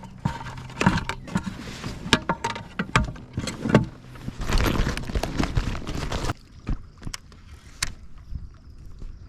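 Irregular knocks, clicks and rustling of handling on a fishing kayak, busy for about six seconds, then dropping suddenly to a few scattered clicks.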